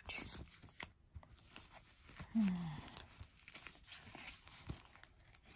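Sticker sheets and paper backings being handled: light rustling, crinkling and small clicks. About halfway through there is a short, low hum from a voice that falls in pitch.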